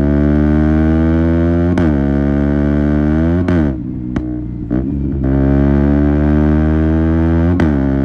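KTM Duke 125's single-cylinder four-stroke engine, breathing through an Akrapovic silencer with the catalyst removed, running hard on the move. Its pitch climbs slowly, then drops sharply a little after three seconds in, sits lower for a moment and comes back up to hold steady. Two sharp cracks, about two seconds in and near the end.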